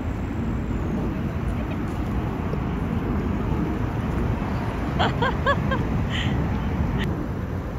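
Steady low rumble of wind on the microphone. About five seconds in there are four short, quick, high-pitched calls, and a single click near the end.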